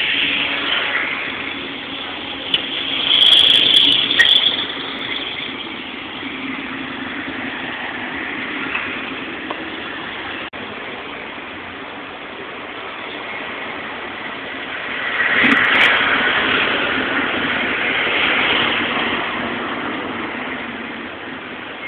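Street traffic: a steady engine hum with cars passing by. It swells twice, about three seconds in and again around fifteen seconds, as vehicles go past.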